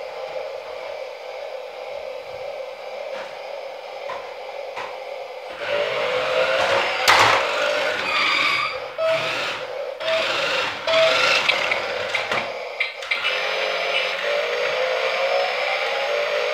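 Small electric motor of a toy remote-controlled car whining and rising in pitch as it speeds up, starting about five seconds in, with sharp knocks and clatter from the car's wheels and body on the ramp and floor, around seven seconds and again between nine and twelve seconds. Near the end the motor winds up again.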